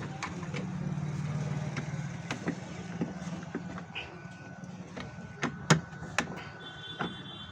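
Steady low hum of motor traffic with a few sharp clicks and knocks, like metal parts being handled, about five to seven seconds in.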